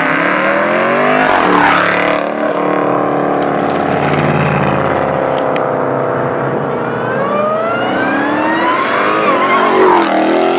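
High-performance car engine revving hard as it accelerates away. Its pitch climbs, drops at an upshift about two seconds in, holds fairly steady, then climbs again and drops at another shift near the end.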